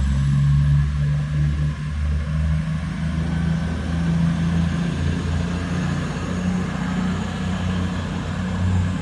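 Class 222 Meridian diesel multiple unit pulling away from the platform, its underfloor Cummins diesel engines running with a steady low drone that rises slightly in pitch as the train gets under way.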